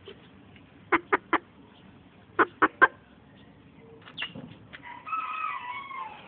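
Serama bantam rooster making two quick runs of three short, sharp clucks, then a brief pitched, wavering call about five seconds in.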